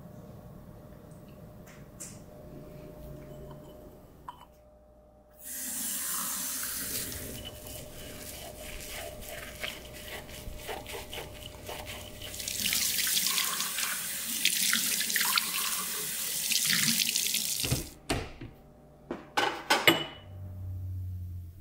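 Kitchen tap running into a sink while a small glass jar is scrubbed by hand with a sponge. The water comes on about five seconds in, gets louder partway through, and stops a few seconds before the end. Then come a few sharp glass clinks as jars are set on a cabinet shelf.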